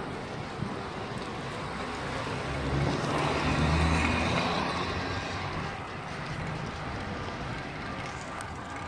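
A motor vehicle passing by: its low engine sound swells to a peak around the middle and fades again over steady outdoor background noise.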